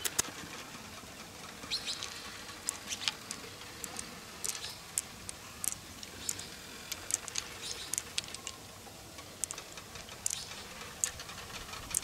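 Light, irregular clicks and wet ticking as fingers work pearls out of an opened freshwater mussel's flesh, the pearls clicking against the shell and against each other in a palm.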